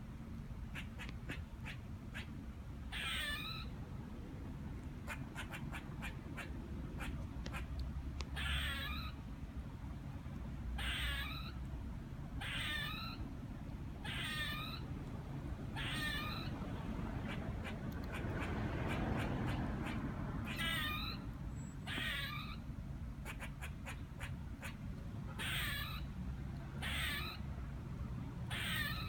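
Squirrel calling from a tree: a run of drawn-out, wavering cries, one every second or two, with short bursts of quick chattering ticks in between during the first part. The cries sound like a chicken clucking or like crying.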